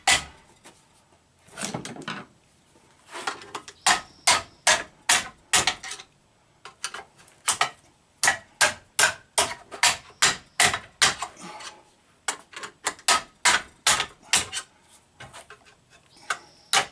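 Repeated sharp clacks, about three a second in runs with short pauses, from a Mercedes-Benz W123 seat track being worked back and forth to free it after its crudded ball bearings were greased.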